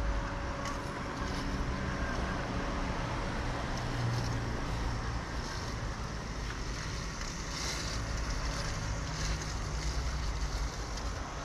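Worx Landroid M500 Plus robotic lawn mower running as it drives itself over the grass, a low steady motor hum.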